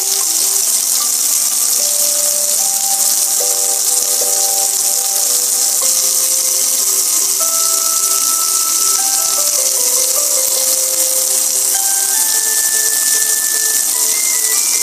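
Water pouring and splashing steadily over a gas grill, a loud, even hiss that drops away right at the end. Over it plays a simple melody of single held notes, like a toy tune.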